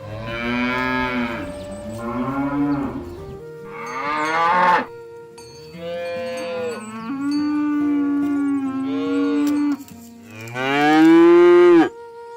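Cattle mooing repeatedly, about six calls in a row, one long drawn-out call in the middle and the loudest call near the end.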